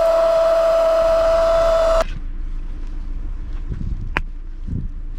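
Electric air-mattress pump running with a steady, high-pitched hum, cutting off suddenly about two seconds in. Faint handling noises and a single click follow.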